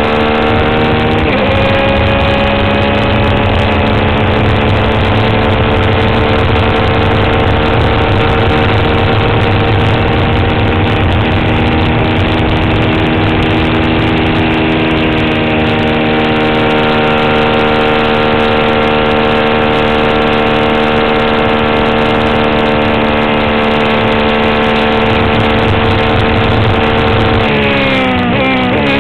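Onboard sound of a Swift DB4 Toyota Atlantic race car's four-cylinder engine held at high revs, loud and steady over wind rush. There is a gear change about a second in, then the pitch creeps slowly upward as the car runs flat out. Near the end the revs drop and blip in a quick series of downshifts.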